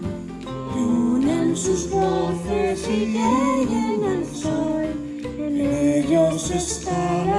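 A girl singing a melody into a handheld microphone over instrumental backing music.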